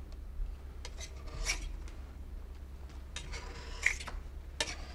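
Metal spatula scraping across a marble slab, detaching thin pieces of almond paste: several short scrapes over a low steady hum.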